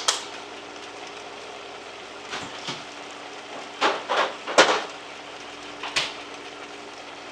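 Kitchen stovetop sounds: a steady low hiss and hum from pots heating on the burners, broken by several short knocks and clatters, loudest twice between about four and five seconds in.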